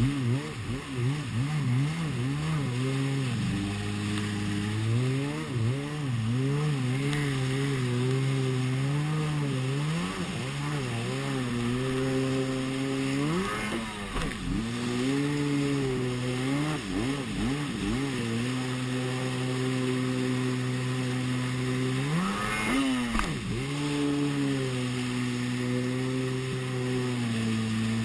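Yamaha WaveBlaster 701 jet ski's two-stroke twin engine running under way, its pitch wavering with the throttle. It drops off and climbs back up about halfway through and again near the end. Rushing spray and water hiss underneath.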